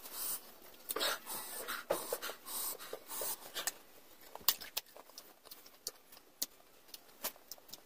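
Mouth noises of people eating sour lemon: breathy sucking and sharp breaths for the first few seconds, then a scatter of short wet clicks and smacks from chewing.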